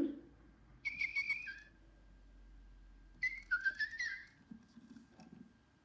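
Little Live Pets Tweet Talking toy bird giving two short electronic chirping whistles, about two seconds apart.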